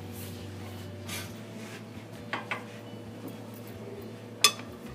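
Light metal clinks, then one sharp metallic knock near the end, as the steel crankshaft pressing jig is handled and set in place on the shop press bed, over a steady low hum.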